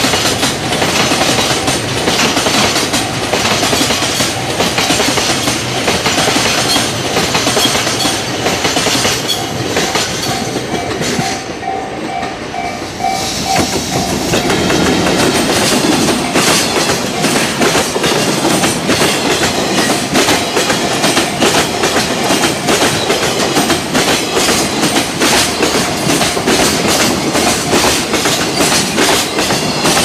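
Freight trains passing close by at speed, their steel wheels clattering heavily and rapidly over rail joints: first a rake of tank cars, then, after a short dip about halfway through, an electric locomotive leading container flatcars. Through the first half a level-crossing warning bell rings in quick, evenly repeated strokes.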